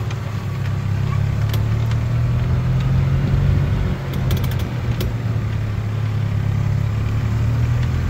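Engine of a golf-cart-style utility vehicle running steadily at a low, even hum while driving across grass, with a few sharp clicks and rattles about a second and a half in and again around four to five seconds in.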